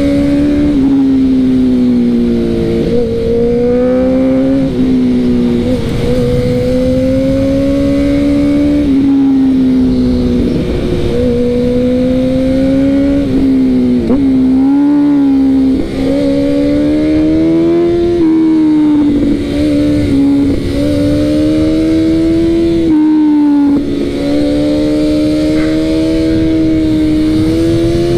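Honda CB motorcycle engine heard from on board while riding, loud, its pitch climbing slowly under throttle and dropping sharply several times as the throttle is rolled off or a gear changes, over a rush of wind.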